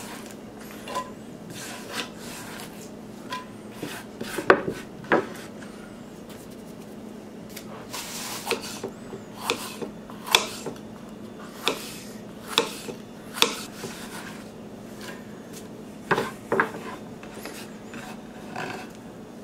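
Kitchen knife chopping onion and green pepper on a wooden cutting board: irregular knocks of the blade on the board, about one a second through the middle, with scraping and rubbing as the chopped pieces are swept off the board into a cast-iron pan.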